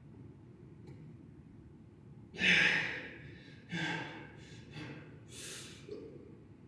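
A man breathing hard from exertion, with four forceful exhales about a second apart from a little over two seconds in. The first exhale is the loudest and the later ones are weaker.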